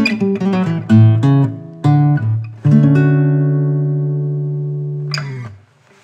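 GWG Guitars Black MAHO 00 acoustic guitar playing a short phrase of picked notes and chords. It ends on a chord that rings for about two and a half seconds and is then muted.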